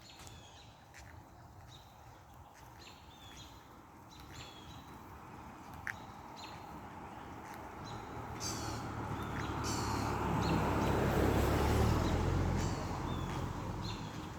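Small birds chirping in short, high, repeated calls. Underneath, a rushing noise with a low rumble swells over several seconds, is loudest near the end, then fades.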